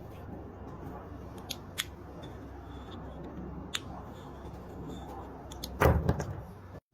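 A few sharp clicks over a steady low rumble, with a louder knock or clatter about six seconds in.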